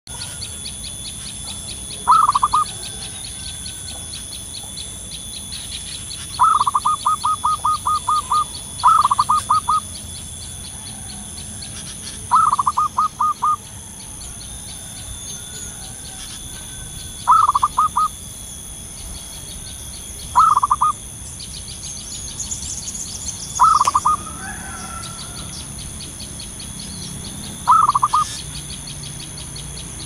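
Zebra dove cooing: eight bouts of rapid staccato coos a few seconds apart, some short and some longer trills of about ten notes. A fast high pulsing and thin steady high tones run behind.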